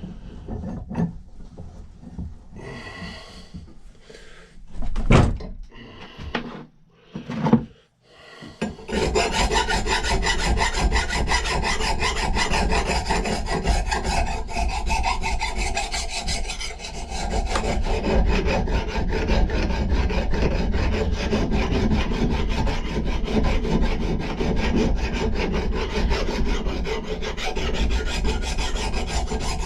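Hand file rasping on the steel of an old axe head in a continuous run of back-and-forth strokes, starting about nine seconds in. Before that, a few separate knocks and handling sounds.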